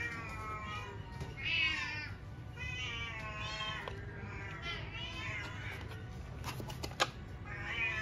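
A cat meowing over and over, several meows each about a second long and wavering in pitch, with a single sharp click about seven seconds in.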